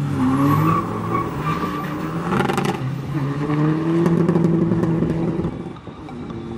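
Tuned 2.0 TDI diesel engine of a VW Golf V accelerating hard from a standing start. The revs climb, drop briefly at a gear change about three seconds in, climb again, then fade as the car pulls away.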